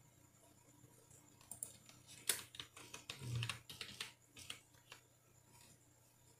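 Computer keyboard being typed on: a short run of keystrokes entering one word, starting about a second and a half in and stopping about five seconds in.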